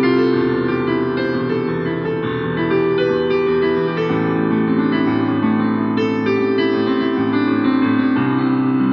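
Instrumental keyboard music: held, piano-like chords that shift every second or two.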